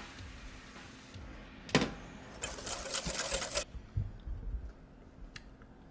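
Kitchen handling at a stainless steel mixing bowl: a wire whisk ticking lightly against the bowl, a single sharp clank a little under two seconds in, then about a second of loud rough scraping, followed by a few light clicks.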